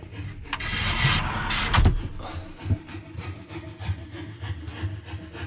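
Solid-core wood pocket door with an anti-slam closer sliding shut on its track, a rolling, rubbing rush that ends in a thud about two seconds in. Fainter low knocks follow.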